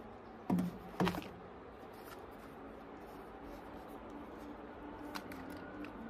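Two sharp plastic clicks about half a second apart as a camera drone and its controller are handled out of their hard carrying case, with a faint steady hum underneath.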